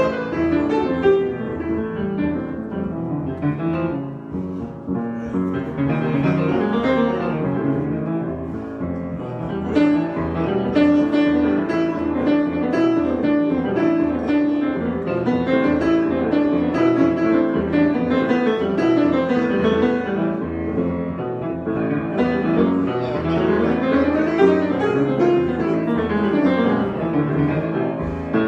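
Solo piano improvisation: flowing, many-note playing with rising and falling runs.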